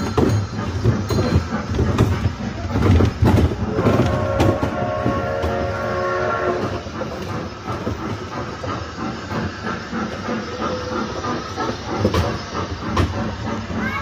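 Train sound effects: a low rumble with scattered knocks, and a steady whistle held for nearly three seconds, starting about four seconds in.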